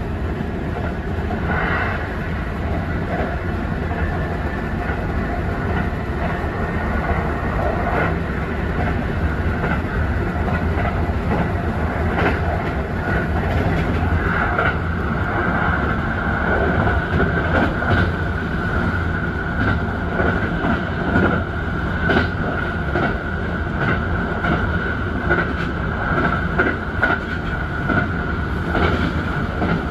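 Kintetsu Urban Liner limited express train running, heard from inside the driver's cab: a steady rumble from the running gear with wheels clicking over rail joints, and a steady whine from about halfway in.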